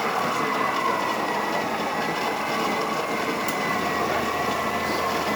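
Krups EA9000 automatic espresso machine running through its cappuccino cycle: a steady mechanical hum with a high whine, and a low pump buzz joining about two-thirds of the way in.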